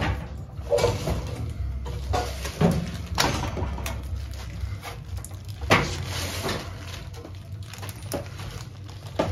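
Handling noise: irregular knocks and scrapes of metal being touched, the loudest about six seconds in, over a low steady hum.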